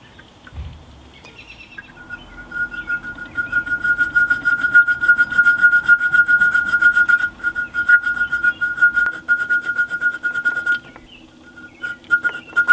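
A small square file rasping back and forth in the square hole of a thin copper guard plate clamped in a vise. The strokes are rapid and come with a steady high-pitched squeal. They start about two seconds in, break off briefly near the end, then start again.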